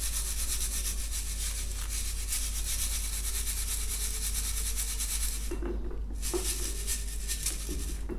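Hand rubbing ground lovebird feed powder through a metal sieve: a steady scratchy rubbing made of quick, dense strokes, which pauses briefly about five and a half seconds in.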